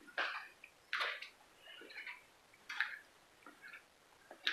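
Footsteps on a hard floor at a slow walking pace, about one step a second, each a short scuff.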